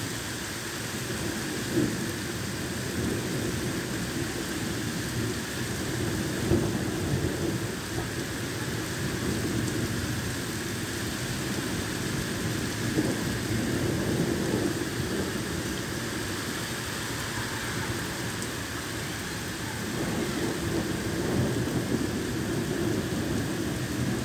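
Heavy rain pouring steadily onto a flooded street, with thunder rumbling low several times through it.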